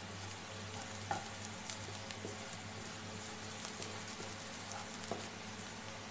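Minced garlic sizzling in hot oil in a nonstick pan as it sautés toward fragrant and golden, with a slotted spatula stirring it and making scattered light scrapes and taps.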